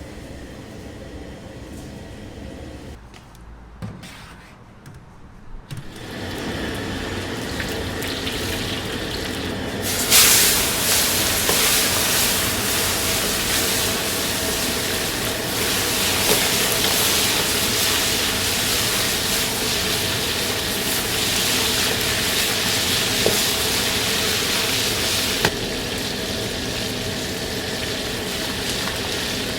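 Steady, loud rushing hiss of restaurant kitchen cooking. It sets in about six seconds in, grows louder about ten seconds in, and eases a little near the end.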